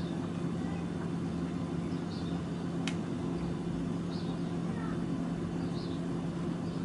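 Refrigerator running with a steady low hum, with one sharp click about three seconds in.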